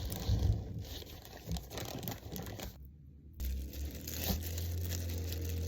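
Crinkling and tearing of a takeaway food wrapping as a nasi padang pack is opened, dense crackling for the first few seconds, then lighter rustles over a steady low hum.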